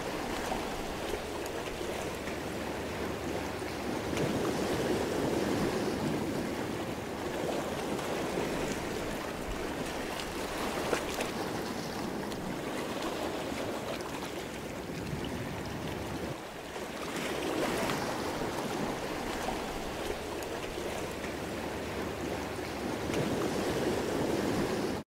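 Sea waves washing in, a steady rushing that swells and eases in slow surges every several seconds, cutting off suddenly near the end.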